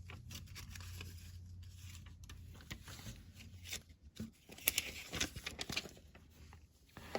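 Plastic Lego bricks clicking and rustling as pieces are handled and pressed together, in scattered short clicks with a louder cluster a little past halfway, over a faint low hum.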